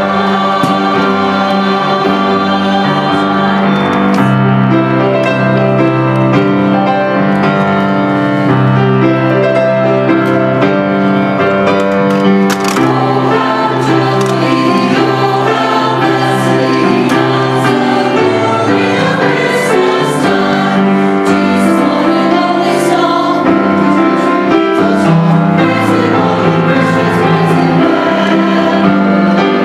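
Mixed church choir of men and women singing a Christmas anthem in sustained chords, accompanied by grand piano.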